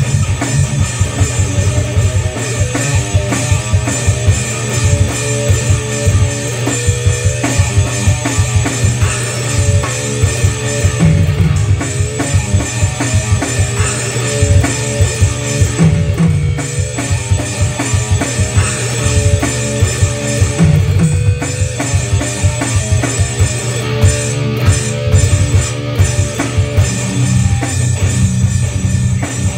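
Electric guitar playing a rock riff over a steady drum beat, with a heavy low end.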